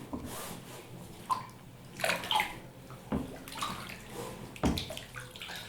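Bathwater splashing and sloshing as a baby plays in a bath, in irregular splashes, with sharper ones about two, three and five seconds in.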